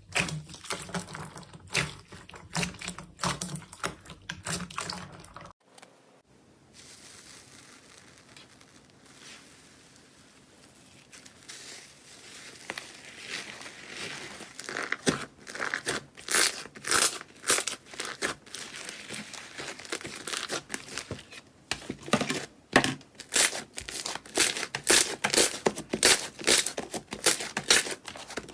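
Slime being handled: crisp rapid clicks, then after a sudden cut a quiet stretch that builds into dense crackling and crinkling pops as the slime is squeezed and pulled apart.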